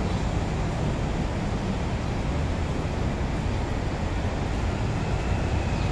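Steady low rumble of road traffic, a continuous even noise with no distinct events.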